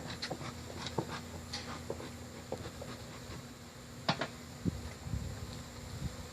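Honeybees buzzing with a faint steady hum, with scattered light clicks and knocks throughout.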